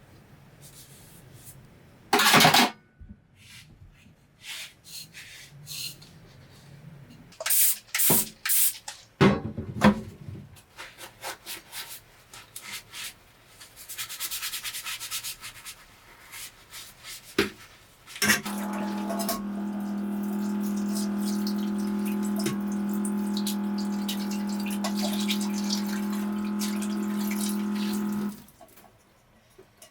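Cookware and utensils handled, with scattered knocks, clinks and rustles, then a steady pitched hum for about ten seconds that cuts off suddenly near the end.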